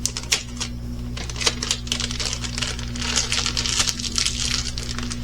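Plastic packaging crinkling, with many small clicks and taps as a diamond painting kit's bags and pieces are handled, over a steady low hum.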